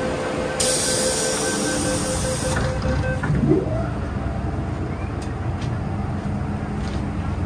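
MTR Kwun Tong Line M-Train running, a steady rumble with humming tones. About half a second in comes a two-second burst of hissing, and a short rising whine follows a moment later.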